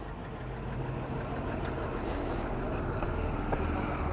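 Motorcycle engine running at low, steady revs while riding slowly, with road and wind noise over it.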